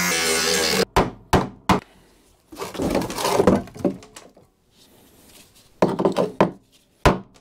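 Cordless angle grinder cutting through a rusted, seized bolt, cutting off abruptly under a second in. Then a series of sharp metal knocks, the later ones a hammer striking a punch to drive out the cut bolt stub.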